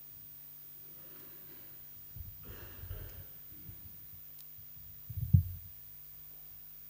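Books being handled on a wooden pulpit close to its microphone: soft rustling and small knocks, then one heavy thump about five seconds in as a book is set down on the pulpit, over a steady low hum.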